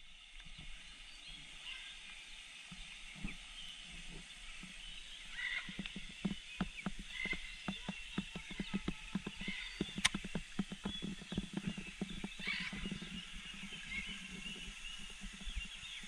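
Macaws calling with a few harsh squawks over a faint wash of falling water, with a rapid run of short ticks through the middle stretch.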